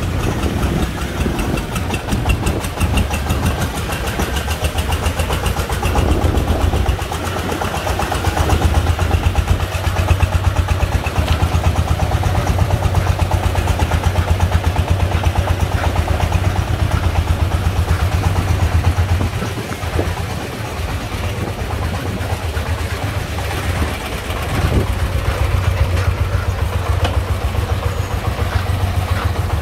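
Single-cylinder diesel engine of a công nông three-wheeled farm truck chugging steadily under way, with a fast, even beat of exhaust pulses. It drops a little quieter for a few seconds about two-thirds of the way through, then picks up again.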